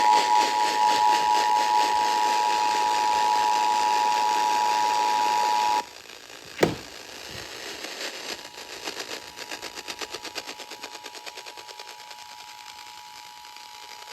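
Emergency Alert System attention signal, the steady two-tone 853 and 960 Hz alarm, received over FM radio with heavy hiss. It cuts off suddenly about six seconds in and is followed by a single sharp click. Under a fast pulsing static, the two tones then come back much fainter.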